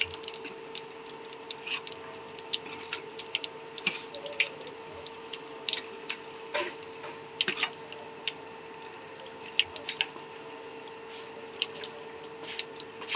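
Potato balls deep-frying in hot oil: a steady sizzle with many scattered small pops and crackles. A faint steady hum runs underneath.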